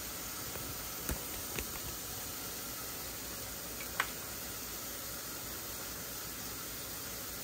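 Steady hiss, with a few light taps and clicks as dried cherries are shaken off a mesh dehydrator sheet over a glass dish of salad; the sharpest click comes about four seconds in.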